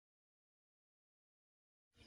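Complete silence: the sound track is blank, with sound cutting in abruptly at the very end.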